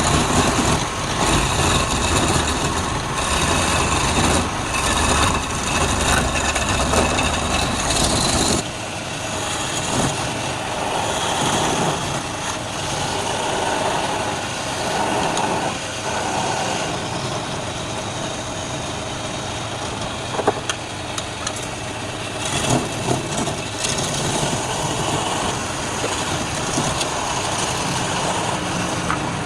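Wood lathe running, with a steady rough noise across the range. A deep low hum drops out suddenly about eight and a half seconds in while the rest of the noise carries on.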